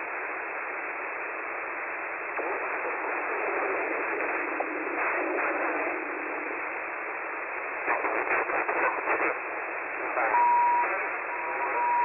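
Static hiss from a web SDR receiver on the 11-metre CB band in single-sideband mode, with faint, garbled sideband voices drifting in and out as the frequency is stepped. A steady whistle tone from a carrier starts about ten seconds in.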